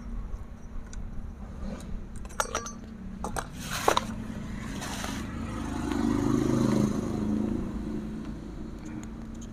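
Metal tools and chainsaw parts being handled during engine work: a few light clinks and scrapes, then a sharp knock about four seconds in. Later a low rumble swells and fades, over a steady low hum.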